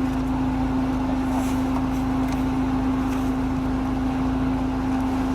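Off-road vehicle's engine running steadily, with a constant droning tone over a low rumble.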